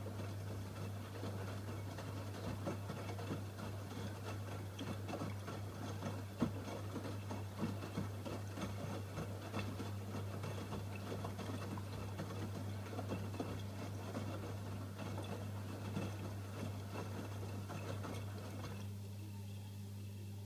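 AEG Öko-Lavamat 85739 washing machine running a wash, its drum tumbling wet laundry with irregular splashing, patter and light knocks over a steady low hum. The tumbling stops about 19 seconds in, while the hum carries on.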